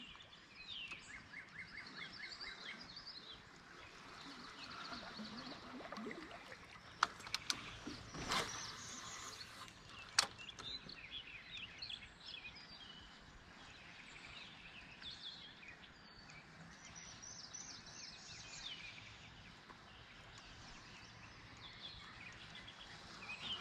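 Quiet pond-side ambience with several birds chirping and singing, including a short trill near the start. Three short, sharp sounds stand out about seven to ten seconds in.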